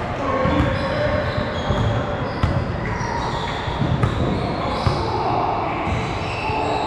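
A basketball bouncing on a gym court during a game: irregular thuds that echo in the hall, with short high squeaks in between.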